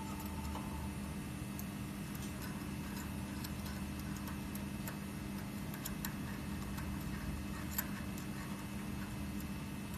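Light metallic clicks and ticks of a hex key turning the small leveling screws of a quartz bar holder as they are run all the way in, over a steady machine hum. One sharper click about eight seconds in.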